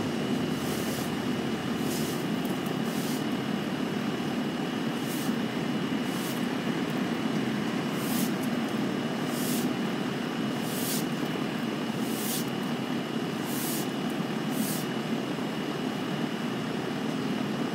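Steady low hum of distant road traffic, with a faint steady high tone and short high hisses about every second and a half.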